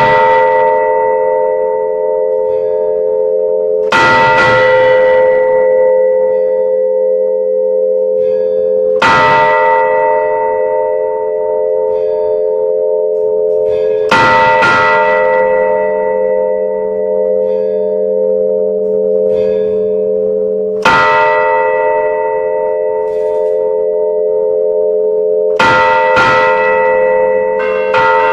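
Large church bell struck by its clapper about every five seconds, rung close up inside the bell chamber to sound the noon hour. Each stroke rings on and overlaps the next. Near the end the strokes come quicker.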